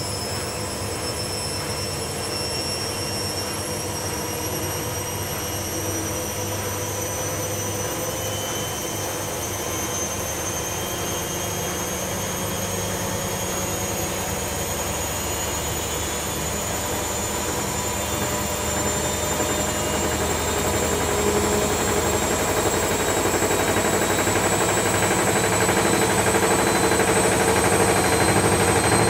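Front-loading washing machine spinning up toward an 800 rpm spin: a steady motor whine that climbs slowly in pitch, the machine running louder over the last third.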